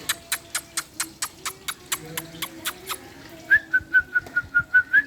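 Parrot making a rapid series of sharp clicks, about five a second. About three and a half seconds in, it switches to a fast run of short, high whistled chirps, about six a second, which are louder than the clicks.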